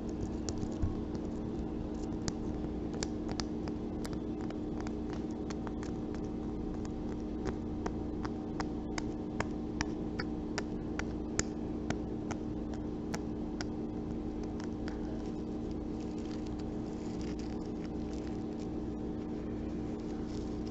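Light, irregular taps and clicks on a coconut's hard hairy shell, ASMR-style, dozens of them over the first three quarters, thinning out near the end, over a steady low hum.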